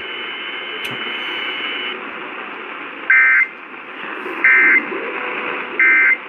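Emergency Alert System end-of-message code received over AM radio: three short two-tone data bursts about 1.3 s apart, over steady radio hiss, marking the end of the tornado warning.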